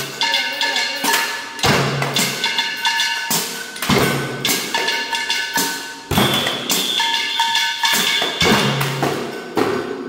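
A makeshift tin band of cooking pots, pan lids and plastic containers beaten with sticks, playing a cumbia rhythm. Quick metal strikes ring on, with a deeper drum-like thud every couple of seconds.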